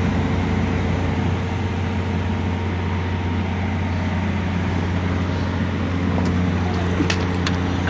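An engine idling steadily with a low, even hum, and two light clicks near the end.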